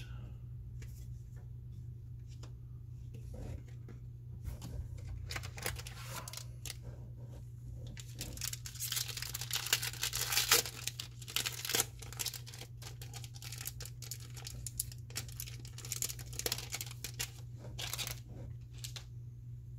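A foil booster-pack wrapper being torn open and crinkled, with rustling and clicks of cards being handled. The tearing and crinkling are densest about halfway through.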